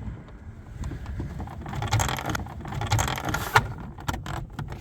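Plastic interior trim piece being slid and pressed into its clips, rubbing and rustling, with a sharp click about three and a half seconds in as it seats.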